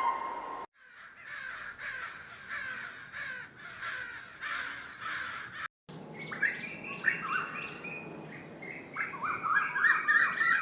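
Bird calls from two recordings spliced one after another. First comes a run of evenly repeated calls that fall in pitch, about one and a half a second. After a sudden cut come harsher crow-like calls that crowd together near the end.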